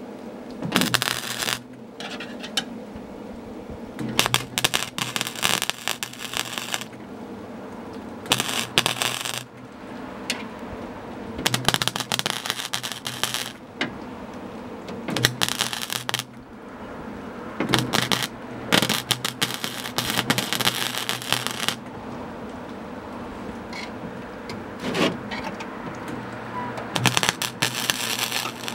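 MIG welder crackling in about nine short bursts of one to three seconds each, with pauses between, as small holes in steel door sheet metal are welded shut around coat-hanger wire plugs.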